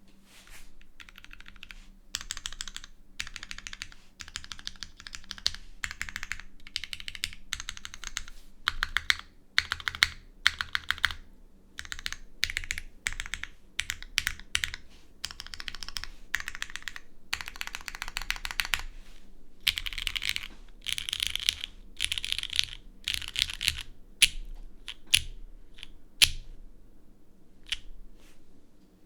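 Typing on a Unikorn R2.1 mechanical keyboard with lubed Cherry MX Black linear switches in a full aluminium plate and GMK keycaps: quick runs of keystrokes with short pauses between them, thinning to a few single keypresses near the end.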